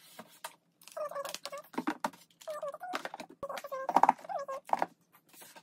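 Plastic makeup palettes clicking and clattering as they are handled and stacked in a drawer. Several short sounds that bend in pitch come among the clicks.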